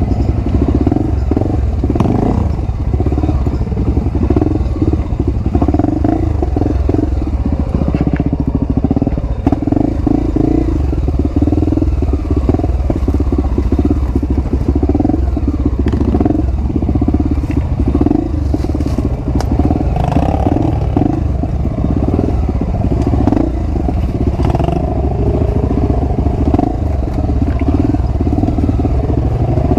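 Honda XR250 Tornado's single-cylinder four-stroke engine running steadily through an aftermarket Power Core 2 exhaust as the bike descends a dirt trail, with scattered clatter and knocks from the bike rattling over rough ground.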